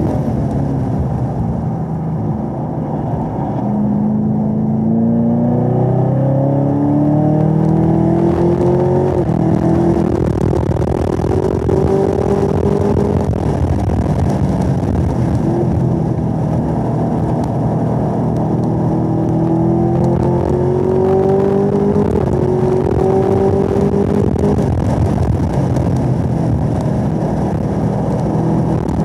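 Supercharged 6.2-litre V8 of a 2017 Camaro ZL1 at full throttle on track, heard inside the car. Its pitch climbs steadily with the revs, eases off briefly about halfway through, then climbs again.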